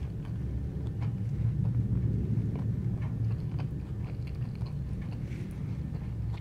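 Close-miked chewing of mushroom linguine, with small wet mouth clicks over a steady low rumble.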